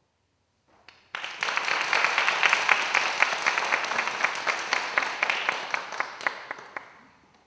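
Audience applauding: many people clapping at once, starting abruptly about a second in and dying away near the end.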